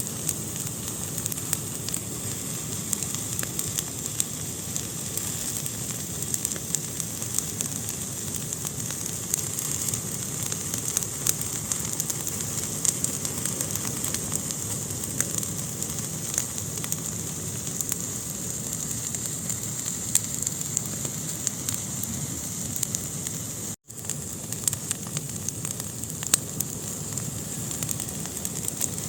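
Fire burning in a fireplace: a steady hiss with frequent small crackles and pops. The sound cuts out for an instant about three-quarters of the way through.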